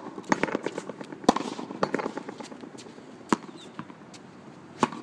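Frontón rally played with tennis rackets: sharp cracks of the ball off the racket strings and the concrete front wall, the loudest about every two seconds, with lighter knocks between.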